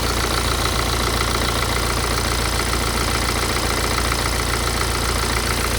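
BMW 116d's N47 four-cylinder diesel engine idling steadily with a rattle, which the owner wonders may be a worn dual-mass flywheel.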